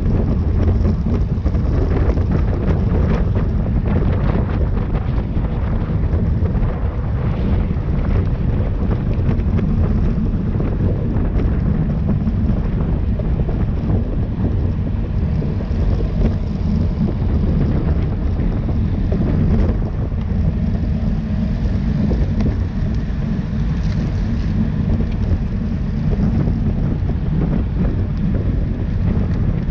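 Steady wind rushing over the microphone of a camera riding with a racing bicycle at speed, a loud, low buffeting rumble.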